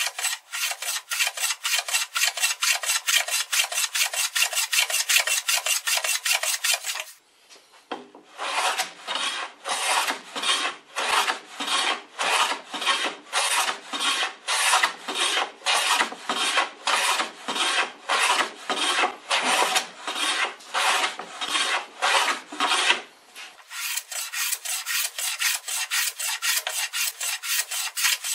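Hand plane shaving a wooden board with a steady train of rasping strokes, about four a second at first; after a short break about seven seconds in they slow to about two a second, then quicken again near the end.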